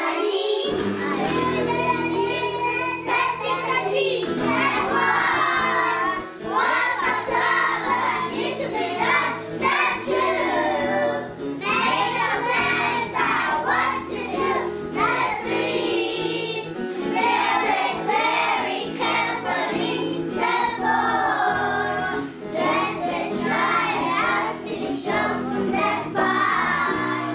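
A group of young children singing a song together in unison over an instrumental backing track.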